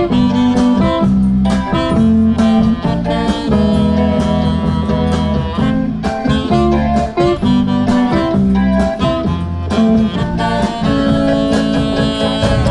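Background music: a guitar-led instrumental with a moving bass line and a steady beat.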